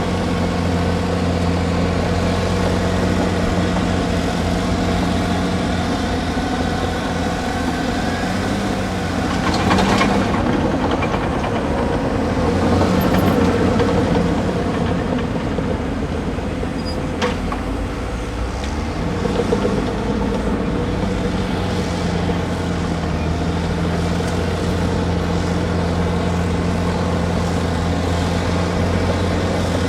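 Heavy excavator diesel engines running steadily under work. A louder, rougher stretch comes near the middle, with a sharp knock and a brief dip in the engine note before it settles again.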